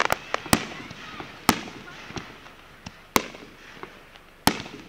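Aerial firework shells bursting overhead: about five loud, sharp bangs at uneven intervals, with lighter pops and crackles between them.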